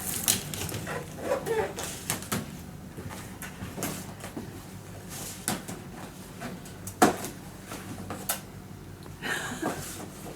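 Irregular light knocks and taps of objects being handled, the sharpest about seven seconds in, with a short gliding baby's vocal sound a little over a second in.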